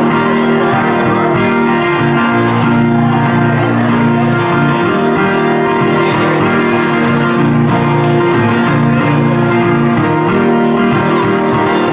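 Two acoustic guitars strummed together in a steady instrumental break, with no singing.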